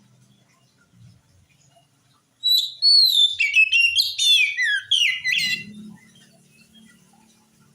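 Oriental magpie-robin singing: after a quiet start, one loud phrase of about three seconds of rapid whistled notes, rising and falling sweeps and quick chirps.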